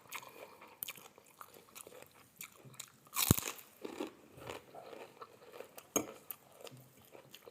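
Close-up biting and chewing of ketoprak with crunchy kerupuk crackers: irregular crunches, the loudest bite about three seconds in.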